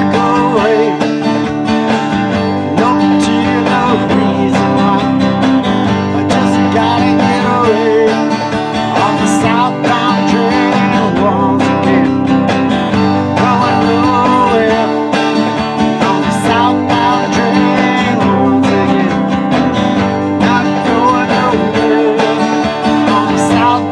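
Country-style song played on acoustic guitar, an instrumental break with a wavering lead melody over steady chords.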